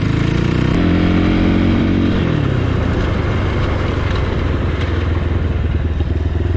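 Motorcycle engine running under way, its note holding steady and then dropping about two seconds in, over a steady rushing noise.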